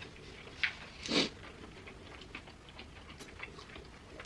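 Close-up eating sounds: chewing and small wet mouth clicks, with a sharp click just over half a second in and one louder, brief noisy burst about a second in.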